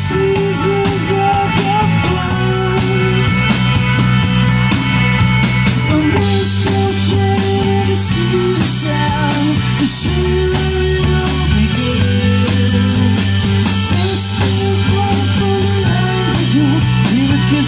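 Live rock band playing: electric guitar, electric bass and drum kit, with keyboard, in a steady full-band passage.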